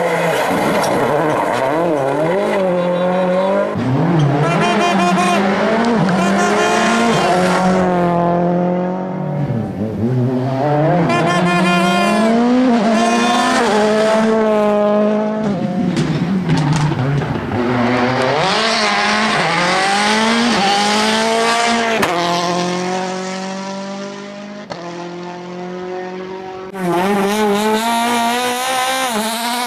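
A run of rally car engines at full throttle. The pitch climbs through each gear, drops sharply at every shift and falls away as each car passes. Near the end it goes quieter for a few seconds, then another car comes in loud.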